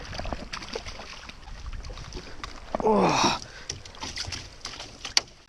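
A landing net is lifted out of the water with a hooked perch and brought into a rowboat: water splashes and drips, and the net frame and the fish knock against the boat in a run of short clicks and taps. There is a brief splashy rush and a short vocal sound about three seconds in.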